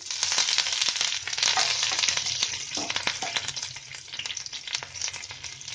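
Fresh curry leaves sizzling and crackling as they hit hot mustard oil with tempering spices and whole dry red chillies, stirred with a wooden spatula. The sizzle is loudest for the first two and a half seconds, then settles to a lower crackle.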